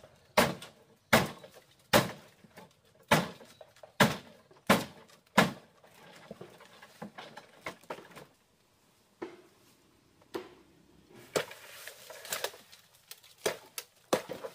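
Repeated chopping strikes with a blade, about one a second for the first five seconds. After a short pause come lighter, irregular knocks.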